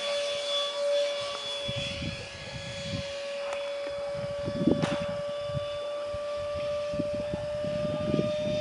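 Ducted fan of a scratch-built radio-controlled F-18 model jet flying past, giving a steady high whine that rises slightly in pitch. Gusts of low rumbling noise on the microphone.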